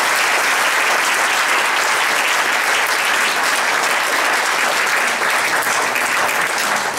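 Audience applauding steadily in a lecture hall, many hands clapping at once.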